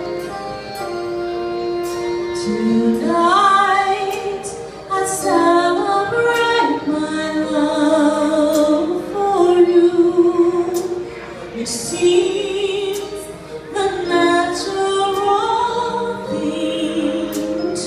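A woman singing live into a microphone, holding long notes that glide between pitches, with a live band accompanying her.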